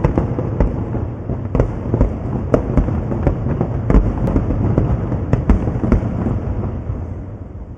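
Fireworks display: a rapid string of sharp bursts and crackles over a continuous low rumble, dying away near the end.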